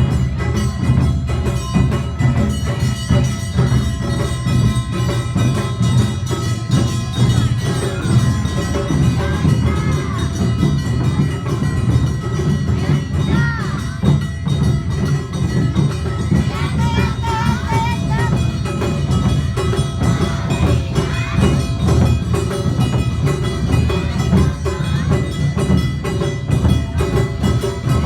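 Awa Odori festival music: a street ensemble of drums and ringing metal percussion, playing a continuous, busy rhythm.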